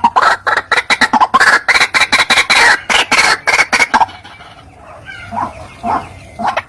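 White-breasted waterhen (ruak-ruak) calling: a fast run of harsh, repeated croaking notes, several a second, that breaks off about four seconds in to a few fainter scattered calls before starting again near the end.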